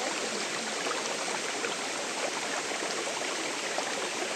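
Mountain stream running steadily, a constant sound of flowing water. The stream's flow is low at the moment.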